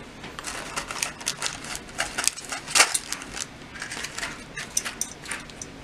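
Handling noise: a run of irregular small clicks, taps and rustles as crimp connectors, wire ends and tools are picked up and handled, with a cloth sleeve brushing close by.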